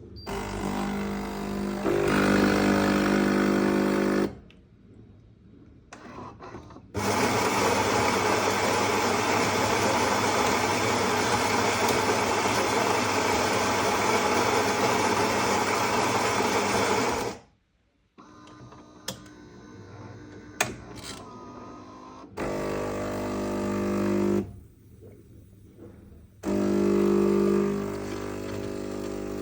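Philips espresso machine brewing a lungo: its pump hums in short runs of a few seconds, stopping and starting. In the middle there is one long even whirr of about ten seconds.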